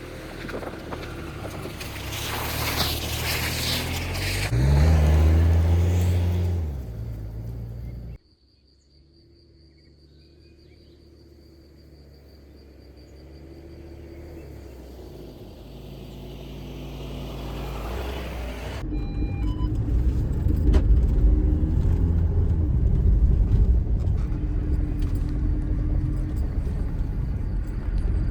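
Audi Q5's engine running and revving: the pitch climbs about four seconds in, then the sound cuts abruptly to a quieter engine hum that slowly swells. From about two-thirds of the way through there is a loud low drone of engine and driving noise.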